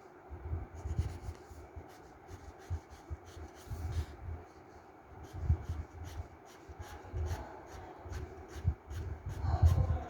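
Colouring on paper: quick back-and-forth scratchy shading strokes with low thuds on the desk underneath.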